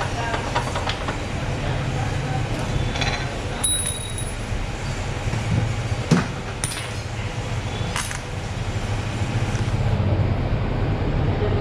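Motorcycle service workshop: a steady low rumble with several sharp metallic clinks of hand tools and parts, about five spread through, as a mechanic takes the bike apart.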